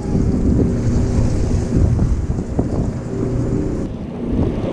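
Boat engine running steadily, with wind buffeting the microphone.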